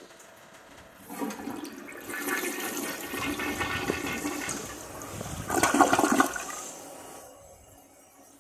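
Mansfield toilet flushing, with water rushing and swirling in the bowl. It starts about a second in, is loudest near the end of the flush, and dies away about seven seconds in.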